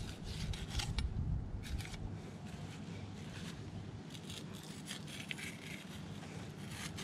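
Filleting knife cutting through a Spanish mackerel's skin and flesh along its back, in short scratchy scraping strokes.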